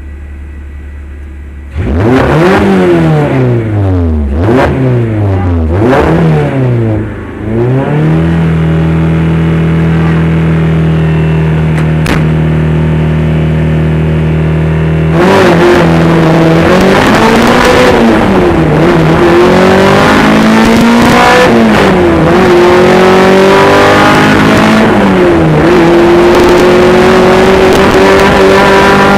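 Honda K24 2.4-litre inline-four in a Jeep Cherokee rally car: idling, then blipped hard three times, held at a steady high rev for about seven seconds, and from about halfway launched into hard acceleration, revs climbing and dropping with each gear change.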